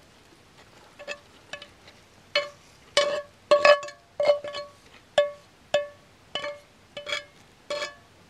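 A utensil clinking against a dish about a dozen times at uneven intervals. Each tap rings at the same pitch and dies away quickly, as when mixing or scooping garlic butter.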